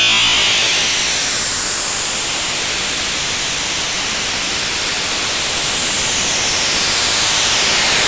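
Synthetic tinnitus-masking noise: a loud, steady hiss whose colour shifts slowly, as if swept by a moving filter. It opens brightest in a high whistling band, then spreads into an even, full hiss.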